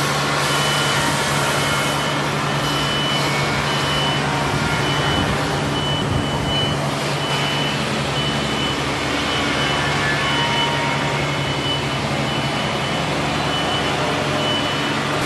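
Machine-shop noise from CNC machining centers: a steady hum and whir, with a short high electronic beep repeating about every two-thirds of a second.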